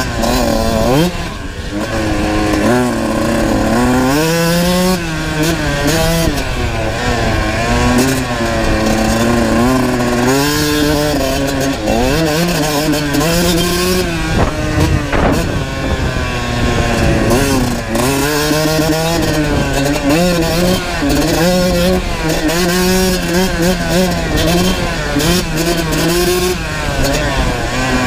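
Kawasaki KX125 two-stroke single-cylinder dirt bike engine being ridden hard: revs climbing and dropping over and over as the throttle is opened and closed and the gears are shifted.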